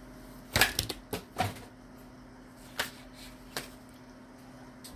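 Tarot cards being handled and drawn from the deck: a quick cluster of sharp clicks and snaps about half a second in, then two single taps later.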